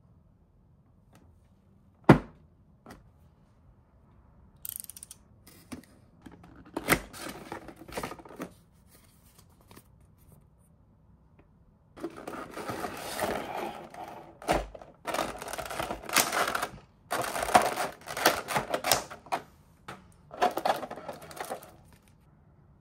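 Unboxing a Nendoroid figure by hand: a sharp knock about two seconds in, then scattered crackling and, from about halfway, dense crinkling and clicking of the clear plastic blister tray and packaging being handled.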